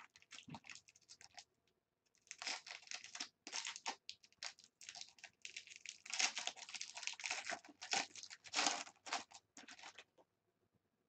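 Foil wrapper of a trading-card jumbo pack crinkling and tearing as it is handled and ripped open, in irregular rustling bursts with a short pause about two seconds in.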